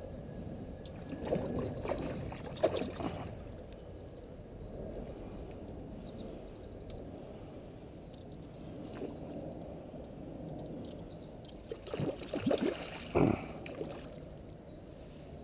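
A hooked carp thrashing and splashing at the surface close to the bank, in bursts about a second in and again near the end, with quieter sloshing of water between.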